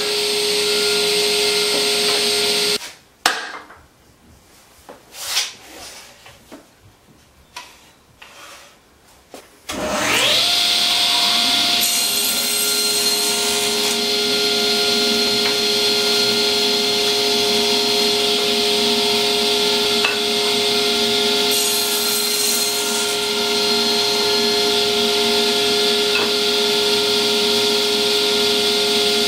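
Table saw running with a steady whine that cuts off abruptly about three seconds in, followed by a few knocks of wood being handled. About ten seconds in the saw starts up again with a rising whine and runs steadily. Twice there is a short hiss of the blade cutting through a wooden board, at about twelve and twenty-two seconds in.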